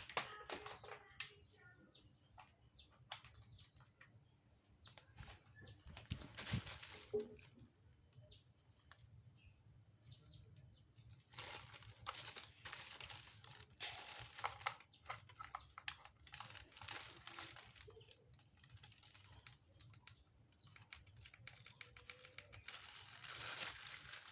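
Packaging being handled and unwrapped: plastic and paper rustling and crinkling, with many light clicks and taps. It comes in bursts: a short one about six seconds in, a longer stretch from about halfway through, and another near the end.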